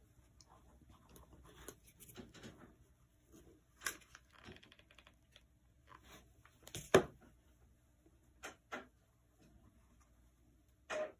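Quiet handling sounds of hand crafting: faint rustling with scattered clicks and taps, one sharp knock about seven seconds in, as a mini hot glue gun is lifted from its stand and set back down and synthetic braids are pressed into place.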